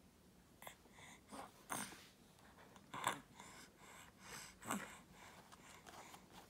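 A series of short breathy sniffs and puffs of breath, one after another, the loudest and sharpest about three seconds in.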